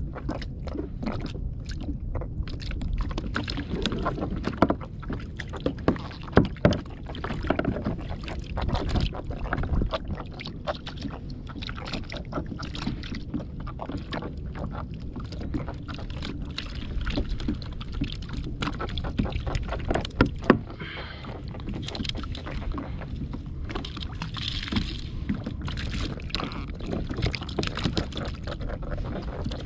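Plastic sit-on-top kayak on the sea: water lapping against the hull over a steady low rumble, with a scattering of knocks and taps on the plastic, a few of them louder.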